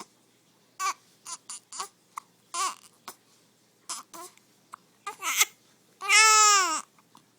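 Hiccups: a string of short, irregular, high-pitched voiced hiccups, followed about six seconds in by one longer, loud whining cry that rises and falls in pitch.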